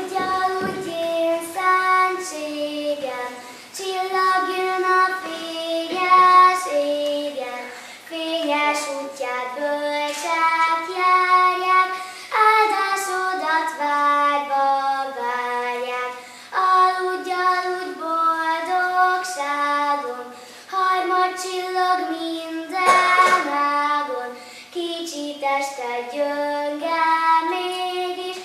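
A young girl singing a song solo and unaccompanied, in short phrases with brief breaks between them.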